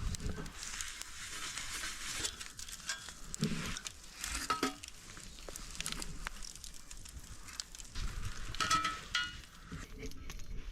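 Peanut oil sizzling on a hand-forged steel griddle baking over a campfire as the seasoning cooks on, a steady hiss with scattered small crackles.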